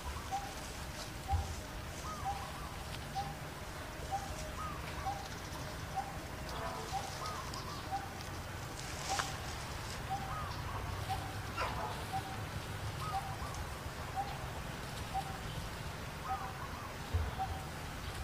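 Background birdsong: one bird repeats a short, even call note about once a second, and another gives a higher, arching call every couple of seconds, over a steady low background hum of outdoor noise.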